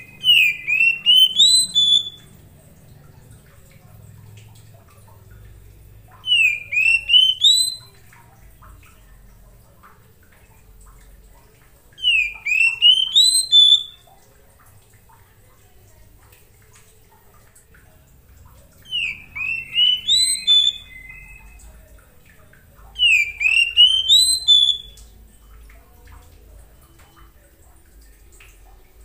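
Oriental magpie-robin singing five short phrases, each about two seconds of quick, sweeping whistled notes, with pauses of a few seconds between. It is a basic calling song of the kind used to lure other magpie-robins into singing.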